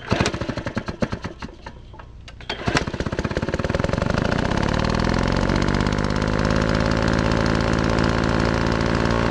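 Small engine firing unevenly with sharp pops for the first couple of seconds, then catching and running steadily with a rapid even beat.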